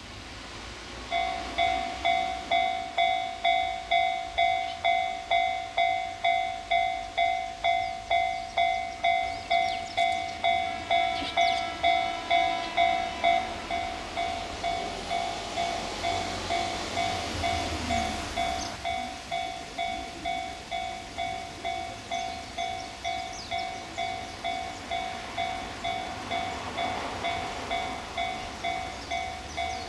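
Japanese railway level-crossing warning bell starts about a second in and rings in a steady ding-ding a little over twice a second. It turns quieter about halfway through while a train's rumble swells past for a few seconds.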